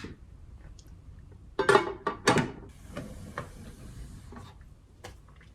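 Dishes and utensils being handled and set down on a table at the end of a meal: two loud clattering knocks about two seconds in, followed by a faint hiss.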